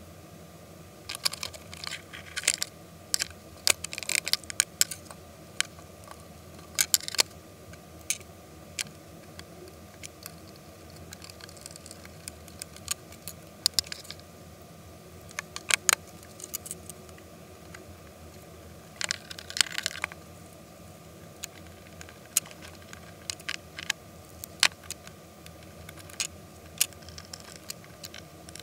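Airsoft AK47 parts being handled and fitted together on a wooden workbench: irregular sharp clicks, knocks and light clatter of metal and plastic pieces, coming in clusters, over a faint steady hum.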